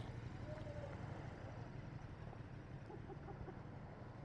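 Quiet outdoor background: a low steady rumble with a few faint, short animal calls.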